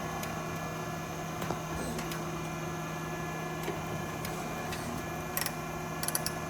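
Okamoto Accugar 124 surface grinder running: a steady electric hum with several steady tones from the spindle motor and drives, with a few short sharp clicks near the end.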